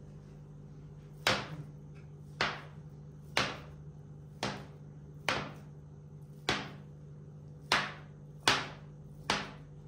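Metal dough scraper chopping down through a round of cookie dough and knocking on the table top: nine sharp knocks, about one a second.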